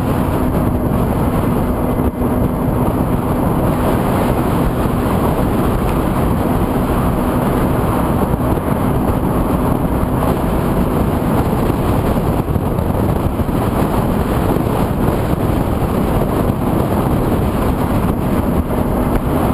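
A 50cc moped's small engine running steadily at cruising speed, mixed with a dense, steady rush of wind noise on the onboard microphone.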